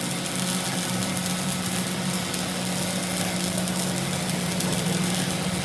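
A workshop machine running steadily with a constant hum.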